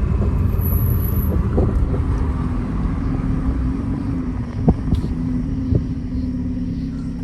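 Car running on the road, heard from inside the cabin as a steady low rumble. Two sharp thumps come a little past halfway, about a second apart, the first the loudest.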